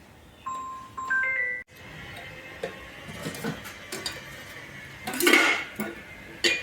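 A short chime-like melody of single notes, cut off abruptly about a second and a half in, followed by a noisy background with scattered clicks, a loud half-second rush of noise about five seconds in, and a sharp click near the end.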